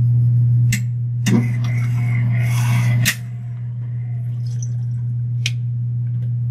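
Steady low hum, with sharp clicks and a hiss of about two seconds as a bench bottle-top dispenser squirts 1 molar KCl solution into soil sample cups. The hiss ends at a click about three seconds in, and one more click comes later.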